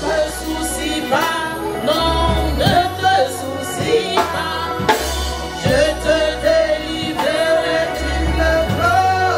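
Live gospel worship music: a voice singing held, sliding notes into a microphone over a steady bass and beat.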